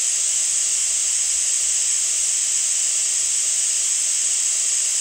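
Steady white-noise hiss, strongest high in the treble, running unbroken and even.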